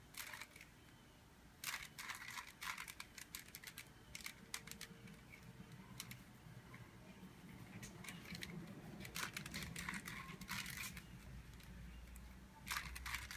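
Rubik's cube being turned by hand: the plastic layers click and rattle in irregular bursts of quick turns, with short pauses between them.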